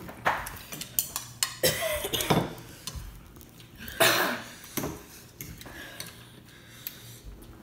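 Metal spoons and forks clinking and scraping against ceramic noodle bowls in a run of sharp clicks. Short pained cries and a loud breathy gasp about four seconds in come from an eater reacting to the heat of extra-spicy noodles.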